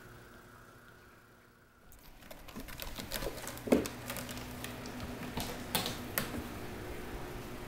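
A cat's claws and paws scratching and catching on the carpet and sisal of a cat tower: a run of irregular clicks and scratches starting about two seconds in, with one louder thump partway through.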